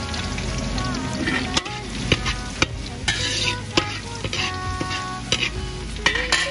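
Minced garlic sizzling in hot oil in a steel wok over low heat, with a metal ladle stirring it and scraping and knocking against the wok several times.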